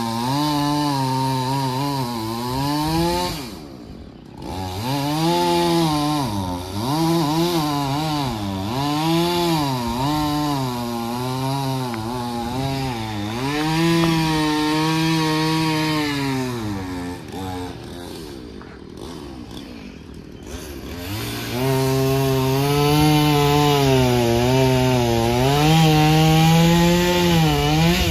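Chainsaw cutting wood, its engine pitch repeatedly sagging under load and rising again. It falls back briefly about four seconds in and for a few seconds past the middle, then revs back up into the cut.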